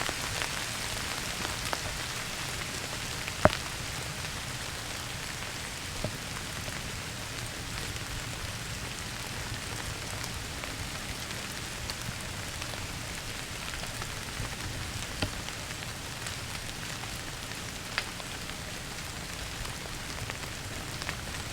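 Steady rain falling, with a few louder single drops striking close by; the sharpest is about three and a half seconds in.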